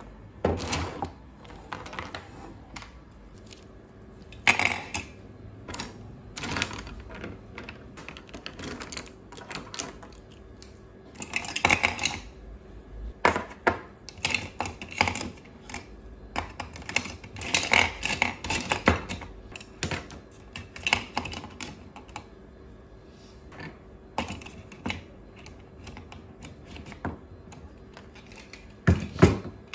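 Plastic pens clattering against one another and against a clear acrylic pen holder as they are picked up and dropped in: irregular clicks and rattles, with several louder clusters, the last near the end.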